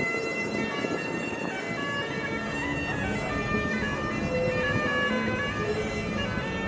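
Bagpipes played by a busker: a tune of stepping notes over a steady drone.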